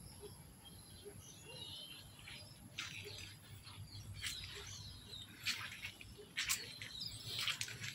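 Birds chirping: a few faint gliding calls at first, then short sharp chirps about once a second in the second half. Under them run a steady high-pitched tone and a low background rumble.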